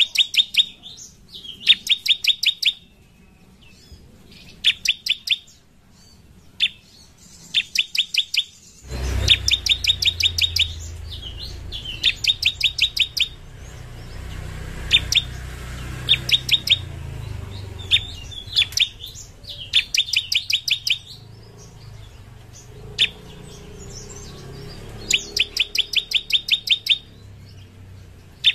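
Bar-winged prinia (ciblek) singing: bursts of rapid, sharp, high notes, about ten a second, repeated every couple of seconds. A low rumble sits under the song from about a third of the way in.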